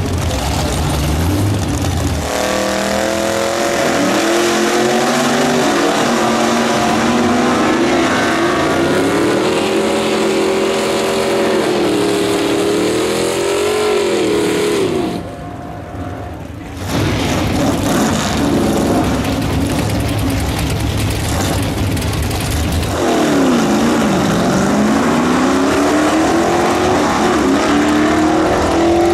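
Vintage gasser drag cars running at full throttle down a drag strip, the engine pitch climbing and stepping through gear changes. About halfway it cuts off abruptly. Then another pair of cars is heard, and near the end an engine note dips and then climbs as a car launches.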